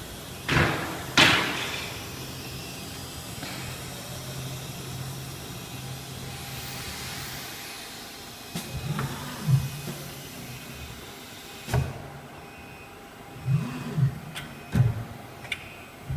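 CNC machine's axis motors making short moves, each a whine that sweeps up and back down in pitch, in repeated groups. A steady low hum runs through the first half, and there are a few sharp knocks, two about a second in and one more midway.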